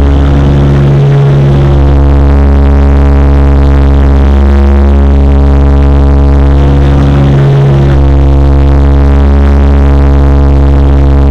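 Loud, steady drone of the Xian MA60's twin Pratt & Whitney PW127J turboprops heard inside the cabin during the climb after take-off: a stack of steady propeller tones over a heavy low hum. The tones waver briefly twice, about a second in and again about seven and a half seconds in.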